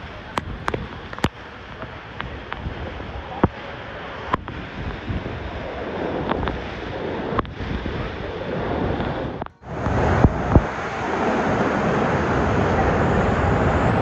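Waterfall rushing: a steady noise of falling water, with scattered sharp ticks in the first few seconds. It drops out briefly about nine and a half seconds in and comes back louder.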